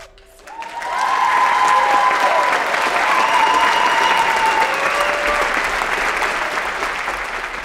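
Theatre audience clapping, with a few voices cheering; the applause swells up about a second in and slowly tapers toward the end.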